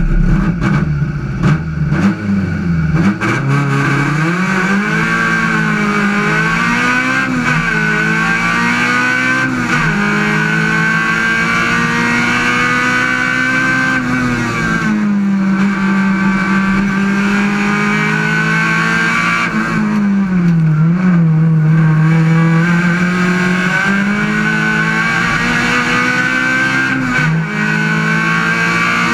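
Ford Puma race car's engine heard from inside the stripped, roll-caged cockpit, running hard under acceleration. Its pitch climbs and drops again and again through gear changes, uneven for the first few seconds as the car pulls away from the start.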